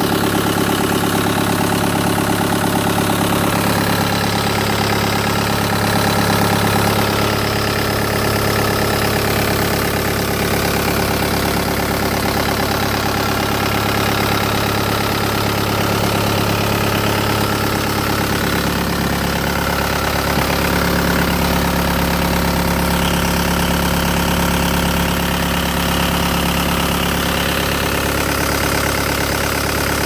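Caterpillar 262C skid steer loader's diesel engine running steadily, heard close up in the open engine compartment.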